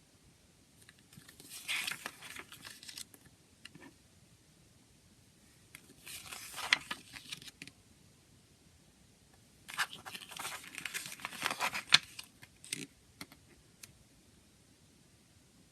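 Plastic shrink-wrap on a CD case being crinkled and torn off by hand, in three bursts of crackling separated by pauses, with a short click about 13 seconds in.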